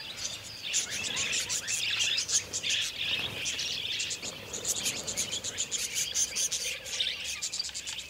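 A flock of budgerigars chattering: a dense mix of quick, high chirps and warbles, with a stretch of rapid ticking chatter in the second half.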